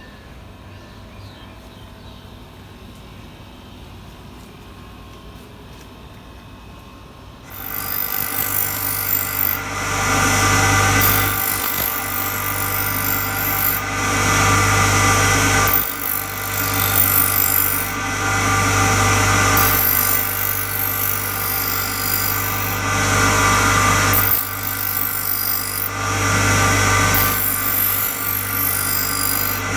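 Bench grinder at work: a faint steady hum, then about a quarter of the way in loud grinding starts suddenly. It swells and eases in repeated passes every two to three seconds over the steady motor hum.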